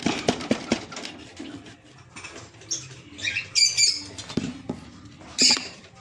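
A few knocks and scrapes on a wooden nest box in the first second, then short, shrill squawks from a lovebird disturbed in the box, several in a row with the loudest near the end.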